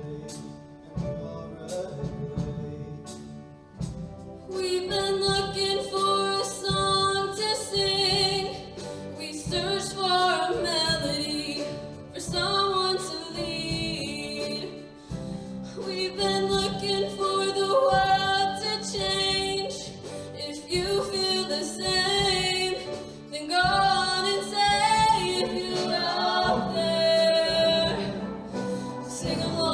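Show choir singing over an accompaniment with a steady beat, soft for the first few seconds and then fuller and louder.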